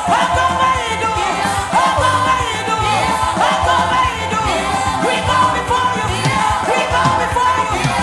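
Worship music with a singing voice that slides up and down in pitch over a steady low accompaniment.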